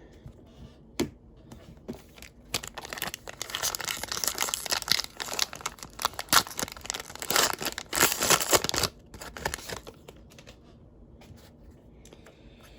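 Plastic wrapper of a 2021 Panini Prestige football card pack being torn open and crinkled, with rustling tearing from about two and a half seconds in to about nine seconds in.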